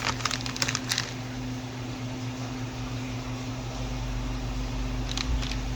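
Steady low mechanical hum of running equipment, with a few short light clicks in the first second and two more near the end.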